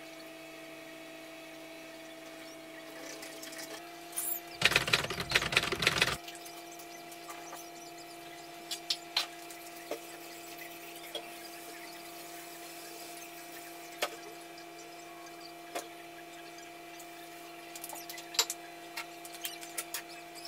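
Dishes being washed at a kitchen sink: a steady hum throughout, a burst of running tap water about four and a half seconds in lasting under two seconds, and scattered clinks of dishes and utensils.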